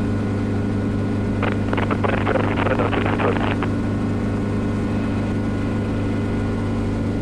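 Schweizer 300CB helicopter's four-cylinder Lycoming piston engine and rotors droning steadily in a hover, heard from inside the cockpit. About a second and a half in, a rustling, crackling noise sits on top of the drone for about two seconds.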